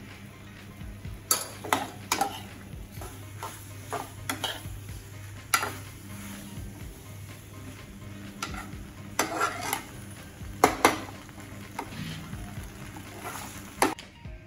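Penne being tossed and stirred with a fork in a steel pan of sauce, with irregular clinks and scrapes of metal on the pan over a low sizzle.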